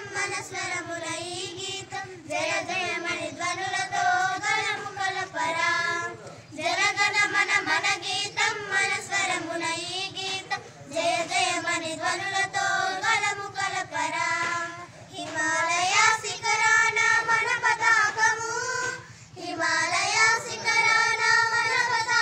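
A group of schoolchildren singing a song together, in phrases with short breaks between them.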